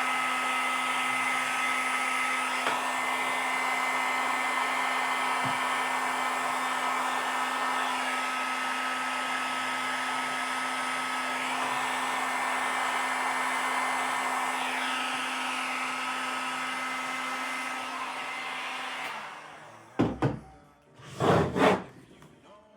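Heat gun blowing steadily with a low hum and a thin whine, drying the glued patch on a speaker cone; it switches off about 19 seconds in. Two short thumps follow near the end.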